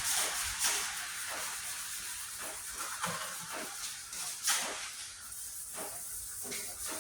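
Hand sanding of primer on a steel truck tailgate: repeated scratchy back-and-forth strokes, about one or two a second, uneven in force, with one harder stroke about halfway through.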